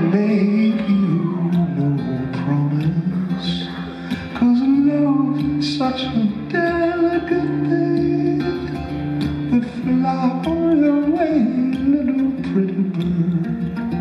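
Solo acoustic guitar played live, with a man's voice singing over it at times.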